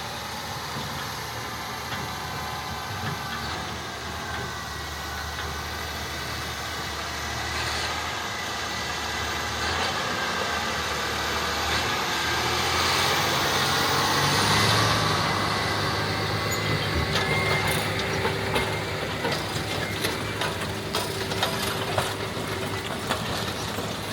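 Diesel engine of a John Deere 9360R tractor running under load while pulling an 8-bottom Salford moldboard plow, a steady drone that swells toward the middle. Scattered sharp crackles join it in the second half.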